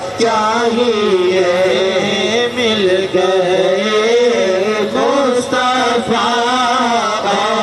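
Male voice chanting a naat, a devotional song in praise of the Prophet, in long wavering held notes with short breaks between phrases.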